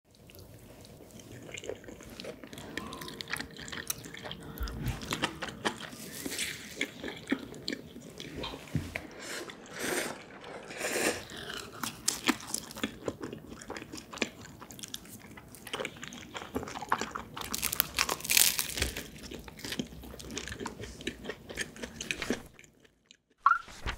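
Close-miked eating sounds: repeated bites, chewing and crunching of food. Near the end the sound drops almost to nothing, with a short rising tone just before it closes.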